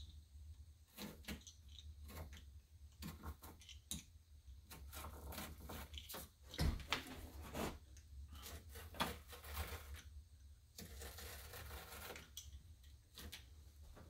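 Pounce wheel rolling along a paper sign pattern laid over cardboard, punching rows of pinholes: faint, irregular clicking and paper crackle, thicker in a couple of longer runs. A low steady hum sits underneath.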